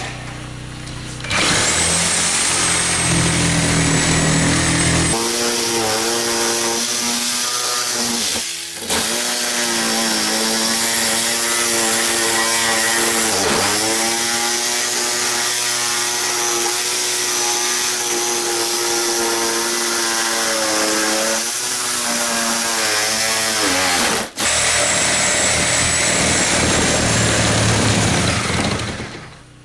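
Reciprocating saw (Sawzall) cutting through a drywall, plywood and timber-framed wall, its motor whine sagging in pitch as the blade loads up and recovering, with two brief breaks in the cutting.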